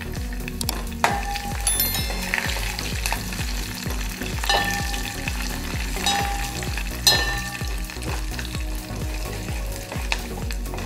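A tempering of dried red chillies, mustard seeds, cumin, urad dal and freshly added curry leaves sizzling and crackling in hot oil in a steel pan while a metal spoon stirs it. Several ringing clinks of the spoon against the pan.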